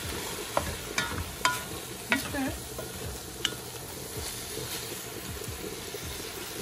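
Ground turkey sizzling in a pot while a wooden spoon stirs it, with about five sharp knocks of the spoon against the pot in the first three and a half seconds.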